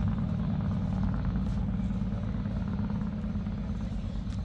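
Steady low rumble of a vehicle engine idling.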